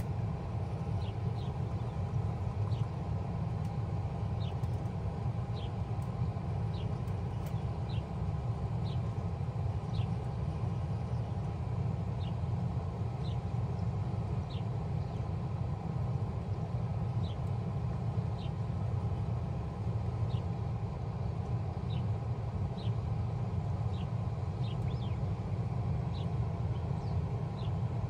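Bard 2.5-ton wall-mounted heat pump running steadily in heat mode: a steady low hum with a fainter steady tone above it.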